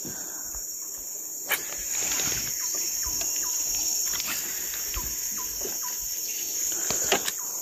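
Steady high-pitched insect drone, with a few faint clicks and short falling chirps over it.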